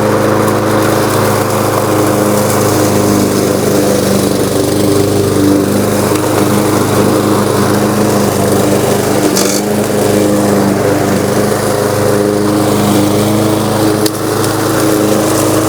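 Craftsman M230 self-propelled lawn mower's 163cc single-cylinder engine running steadily, freshly started.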